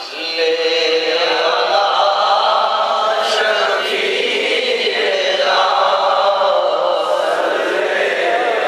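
A group of men's voices chanting devotional words together in long, held notes, loud and steady.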